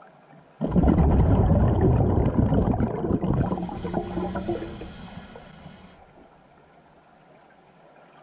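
Sound effect for an animated intro logo: a sudden loud rumbling rush that starts about half a second in and fades away over about five seconds.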